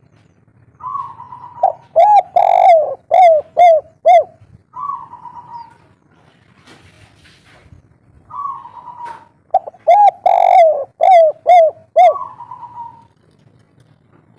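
Spotted dove singing its 'kuk 3' song type, twice. Each phrase opens with a drawn-out higher coo, runs into a quick rhythmic string of short, lower coos, and ends with another drawn-out coo.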